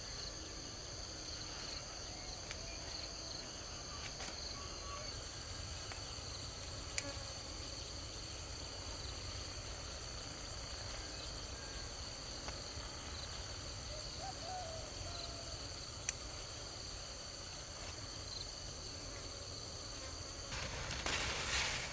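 Steady chorus of insects chirring in two high-pitched bands, with a couple of sharp ticks. Near the end a louder burst of noise begins.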